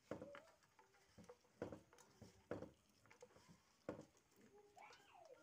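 A hand squeezes and mixes chopped shallots, green chillies and roasted seeds in a stainless-steel bowl, making faint, irregular taps and clicks of fingers and food against the steel. A short faint chirp comes near the end.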